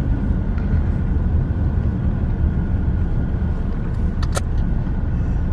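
Steady low rumble of a car heard from inside the cabin, with a brief sharp high sound about four seconds in.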